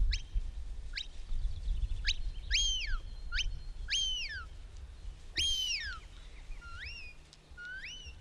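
A sheepdog handler's whistle commands to a working dog: a string of about nine whistles. Some are short sharp upward flicks; others rise, hold a steady note, then slide down. They signal the dog as it gathers sheep towards the pen.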